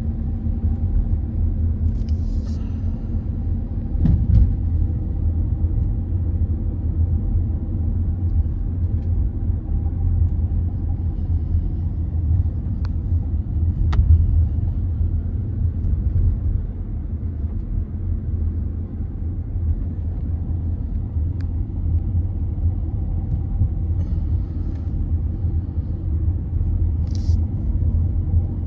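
Steady low rumble of a vehicle driving, road and engine noise, with a few brief clicks.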